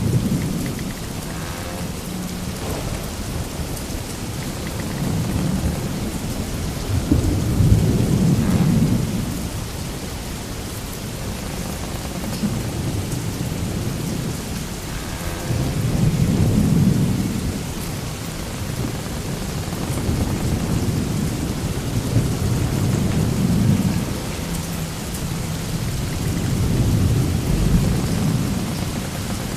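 Sailing ship ambience sound effect: a steady rush of rain-like noise with deep rumbling swells rising and falling about every seven to ten seconds.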